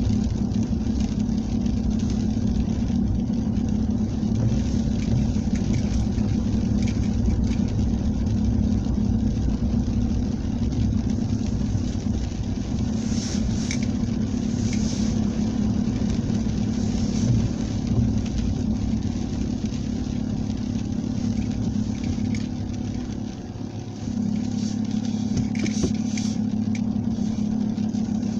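A vehicle engine running steadily, its low drone easing briefly near the end and then coming back.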